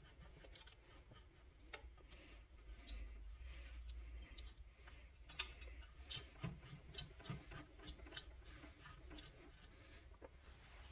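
Faint metal rubbing and light scattered clicks as a rifle action is screwed by hand onto a barrel held in a vise, the threads coated in anti-seize.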